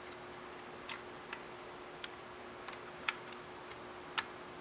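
Light, sharp clicks at about one a second, with a few fainter ticks in between, over a faint steady hum.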